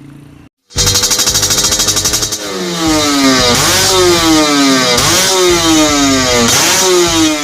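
Yamaha RX-King two-stroke single-cylinder engine revved through its exhaust. After a short break about half a second in, it is held high with a fast rattle, then blipped three times, the pitch jumping up each time and falling away over about a second and a half.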